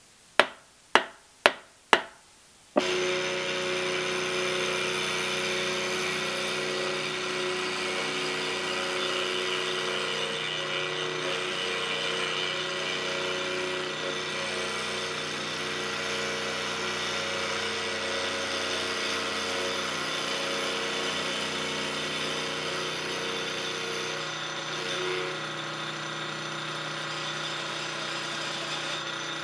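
Four sharp blows of a soft-faced hammer tapping a cast-iron bearing block down in a milling vise, then a vertical milling machine starts about three seconds in and runs steadily with a humming motor while its end mill machines the rough casting of the block.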